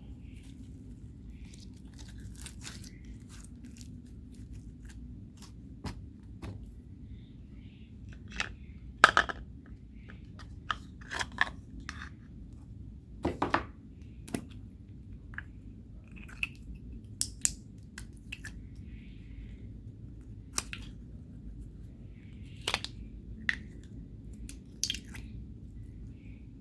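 Homemade slime being worked by hand, giving scattered sticky clicks, pops and crackles at irregular moments, the loudest about nine and thirteen seconds in, over a faint low hum.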